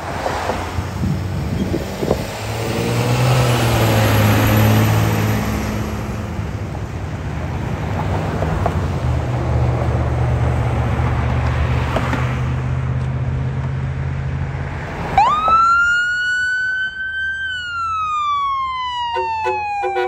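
Fire engine's train horn sounding as a long, steady, multi-tone blast over the truck's engine, loudest in the first few seconds. About 15 seconds in, an electronic siren takes over, wailing up sharply, holding high, then falling in pitch.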